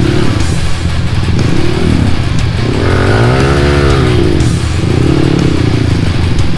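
Honda CRF150L dirt bike's single-cylinder four-stroke engine running at low speed with the throttle blipped up and down; the biggest rev rises and falls about three seconds in.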